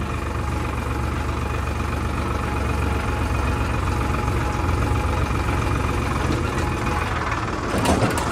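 Tractor diesel engine running steadily while driving along a dirt track, heard from the driver's seat right by its upright exhaust stack. A brief rattle comes near the end.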